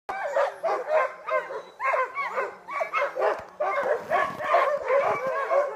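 A team of sled dogs barking all at once, many calls overlapping in a constant din without a break.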